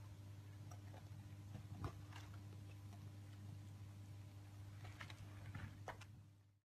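Quiet room tone with a steady low hum and a few soft clicks and rustles from kittens scrabbling in a tray of litter pellets; the sound cuts off suddenly near the end.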